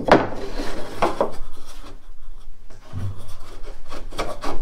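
Plywood plate scraping and rubbing against the epoxy-coated plywood hull as it is shifted and pressed into place to test its fit, in a few short scrapes, the last ones near the end.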